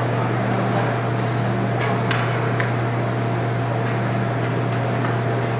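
Ice hockey rink ambience: a steady low hum with a faint even background din, and a few light sharp clicks about two seconds in.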